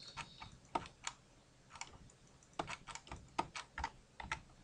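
Computer keyboard keys tapped irregularly, about a dozen sharp clicks, some in quick clusters.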